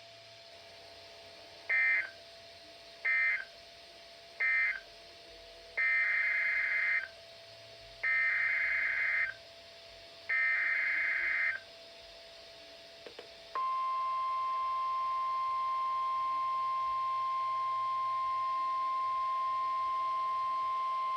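NOAA Weather Radio emergency alert tones. First come three short, harsh warbling SAME data bursts, the end-of-message code closing the previous alert. Then three longer SAME header bursts encode the new alert, and about 13 seconds in the steady 1050 Hz warning alarm tone starts and holds.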